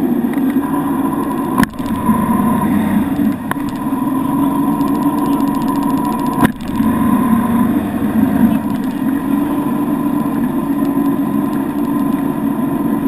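Motorboat engine running steadily at towing speed, with rushing wind and water. Two sharp knocks break in, one a second and a half in and one about six and a half seconds in.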